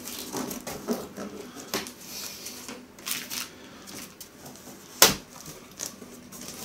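Cardboard box flaps and the packaging inside rustling, crackling and scraping as a large shipping box is unpacked by hand, with one sharp snap about five seconds in.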